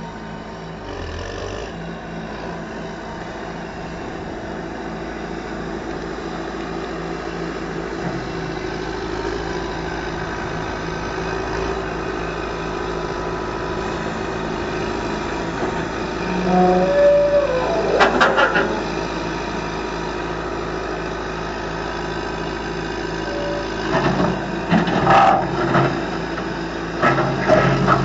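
John Deere 610C Turbo backhoe loader's turbocharged diesel engine running, growing steadily louder as the machine comes closer. Short squealing tones come about two-thirds of the way through, and uneven surges of engine and hydraulic noise come near the end as the loader bucket is worked and the machine turns.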